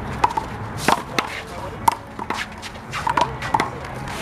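One-wall handball rally: a big blue rubber handball is slapped by hands and smacks off the wall and the ground. The result is a quick, uneven series of sharp slaps, about ten in four seconds.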